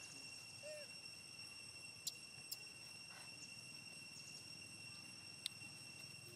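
Quiet outdoor ambience: a steady high insect drone, with three short sharp clicks in the middle and near the end and a faint brief chirp about a second in.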